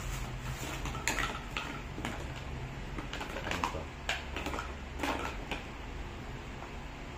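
Hard plastic paddle parts clicking and clattering as the shaft sections and blade of an inflatable boat's paddle are handled and fitted together, in irregular short knocks.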